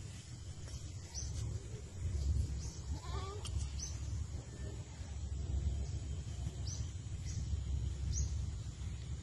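Steady low outdoor rumble, with a short wavering animal call about three seconds in and a few brief high chirps.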